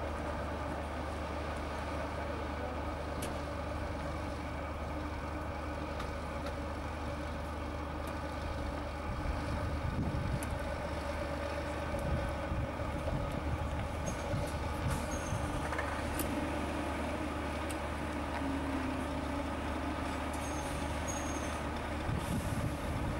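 Scania Streamline trucks' diesel engines running at low speed as they manoeuvre, a steady low rumble with a few sharp clicks and a couple of brief high squeaks.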